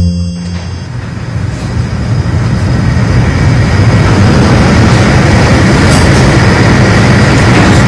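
Steady vehicle running noise with a low drone, fading in over the first two to three seconds and then holding even.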